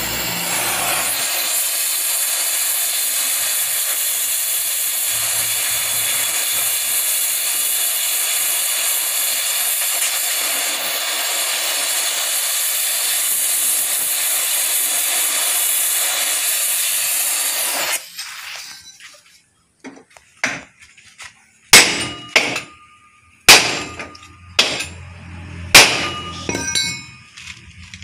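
Oxy-acetylene torch flame hissing steadily as it heats a rivet in a truck chassis rail, then cutting off about two-thirds of the way in. A run of about seven sharp metallic hammer blows follows, setting the head of the hot chassis rivet.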